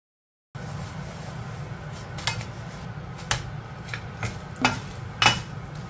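Wooden spatula knocking and scraping against an iron wok while a scallion pancake fries in it, over steady sizzling. It starts after half a second of silence, with about five sharp knocks spread through the rest.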